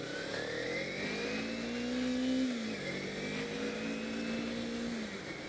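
Kawasaki Ninja 300's parallel-twin engine pulling the bike away under acceleration. The revs climb, dip with an upshift about two and a half seconds in, then climb again and dip with another shift near the end.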